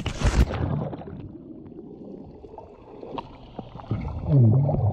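Splash as the camera goes under, then the muffled rumble and gurgle of seawater around a submerged action camera, louder near the end.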